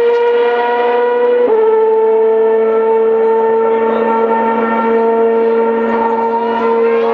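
Formula One car's 2.4-litre V8 engine running at steady high revs, a loud even whine with a short step down in pitch about a second and a half in.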